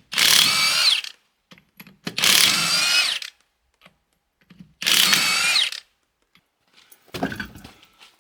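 Impact wrench running in three bursts of about a second each, loosening the lug nuts on a Bobcat skid steer wheel, followed by a softer clunk near the end.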